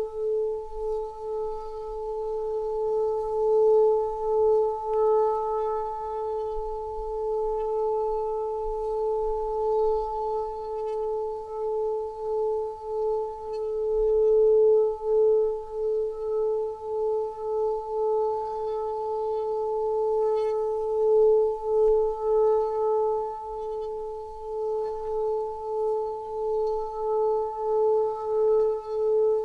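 A steady ringing drone tone, like a singing bowl, held without a break, with a quick pulsing wobble in its loudness and fainter higher overtones above it.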